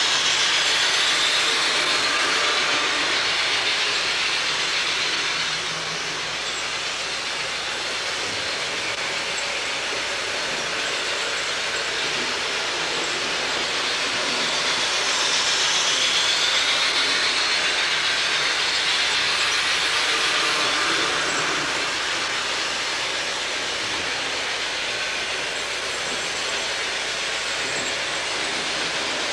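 HO scale model trains running on the layout's track: a steady whir and rattle of small motors and metal wheels on rail, growing louder twice as trains pass close, in the first few seconds and again about halfway through.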